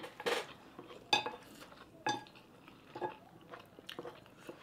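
Eating utensils and a serving ladle clinking and scraping against plates and a frying pan: a short scrape at the start, then separate sharp clinks about a second apart.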